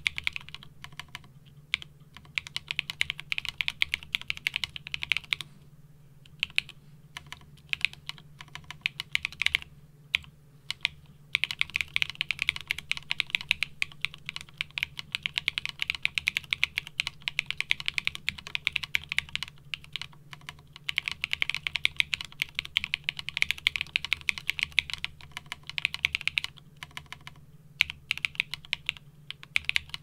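Steady fast typing on a Cannonkeys Practice65 V2 mechanical keyboard fitted with hand-lubed JWK Splash Bros linear switches: a dense run of short clacks, broken by a few brief pauses.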